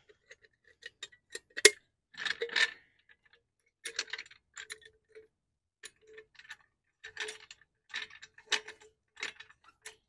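Metal car jack being handled and worked under the car: irregular light metallic clicks and clinks, some with a brief ring.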